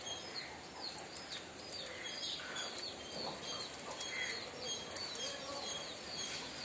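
Small birds chirping: a continuous run of short, high chirps, several a second, over faint outdoor background noise.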